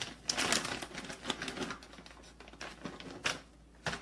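Plastic pouch of peeled garlic crinkling and rustling as a hand rummages inside it for cloves, in quick irregular crackles that are densest in the first second and a half and then thin out.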